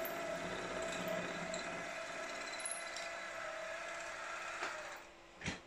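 Milling machine spindle running steadily with a drill in the chuck, no longer cutting after drilling right through the part. It is switched off near the end and the hum dies away, followed by a single sharp knock.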